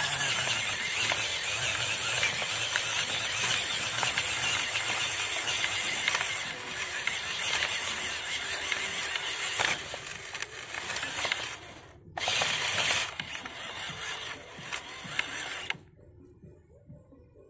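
Dry cat kibble rattling in a clear plastic tub, shaken steadily as a call to a cat. It breaks off briefly about twelve seconds in and stops suddenly near the end.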